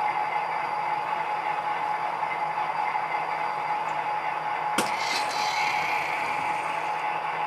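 HO-scale model coal train rolling slowly under an operating model coal loader: a steady hum and hiss, with one sharp click nearly five seconds in followed by about a second of rushing noise.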